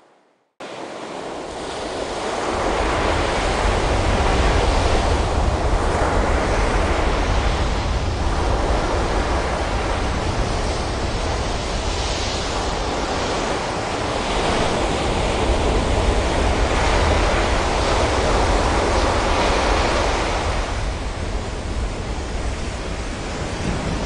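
Ocean surf: waves breaking and washing in, a dense rushing noise with a deep low rumble underneath, swelling and easing every few seconds. It comes in suddenly after a brief silence at the very start and builds up over the first couple of seconds.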